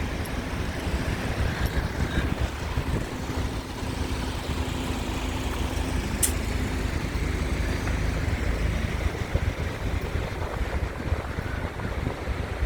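Road traffic passing on a busy bridge, a steady low rumble with the hum of a large vehicle's engine for several seconds in the middle. A single brief tick about six seconds in.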